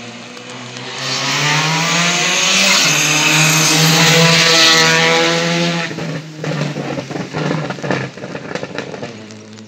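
Race car engine at high revs approaching and passing on a wet road. Its note climbs as it comes nearer and is loudest through the middle, then breaks into a ragged run of sharp crackles and pops as the car goes away.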